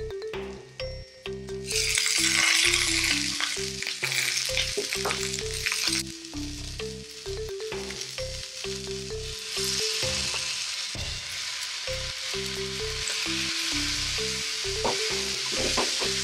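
Food hitting a hot oiled frying pan and sizzling loudly from about two seconds in, then frying steadily while it is stirred, with occasional clicks of the utensil on the pan. Background music with a repeating melody plays throughout.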